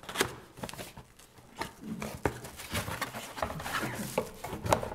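Paper and a plaque folder being handled close to a desk microphone: rustling with scattered sharp clicks and light knocks.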